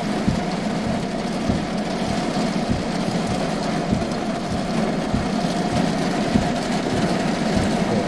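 Steady rain on a car, heard from inside the cabin, over a constant hum, with irregular low thuds.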